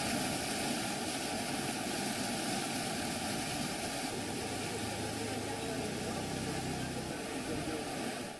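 Steady rushing noise of fast-flowing river floodwater, with a faint low hum joining about halfway through.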